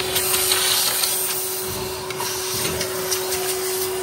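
Vacuum cleaner running steadily: a motor hum with one held tone under a rushing hiss, with faint ticks and scrapes as it sucks carbon buildup out of a Cummins diesel's open intake.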